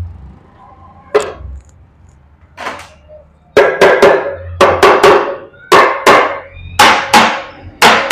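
A Hero Splendor motorcycle engine's clutch cover being knocked into place on the crankcase with ringing metallic blows. Two lighter taps come first, then about a dozen hard blows, many in quick pairs, from about three and a half seconds in.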